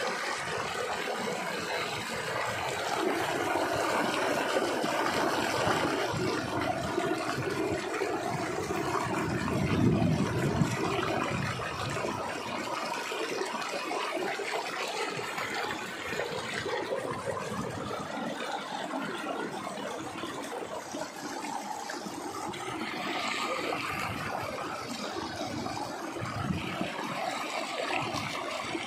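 Water gushing out of concrete culvert pipes and splashing into the canal below, a steady rushing splash that swells briefly about ten seconds in.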